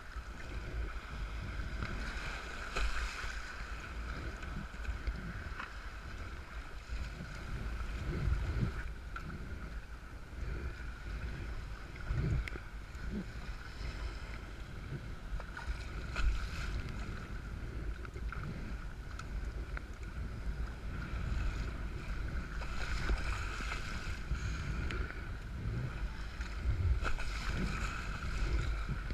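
Wind rumbling on the camera's microphone over the rough, breaking water of a tide race, with water splashing around the bow of a sea kayak as it is paddled.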